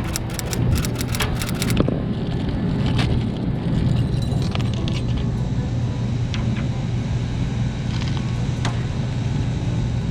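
Steady low hum of running refrigeration and air-conditioning equipment. Over the first two seconds comes a quick run of small metallic clicks, with a few single clicks later, as the low-pressure switch's cut-in setting is adjusted.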